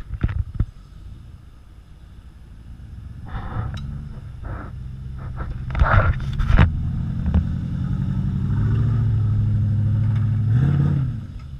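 Jeep Grand Cherokee SUV driving up close and climbing a rock slab, its engine pulling steadily under load. Sharp crackles of the tyres over the trail come as it passes close, and the engine revs up and back down briefly near the end.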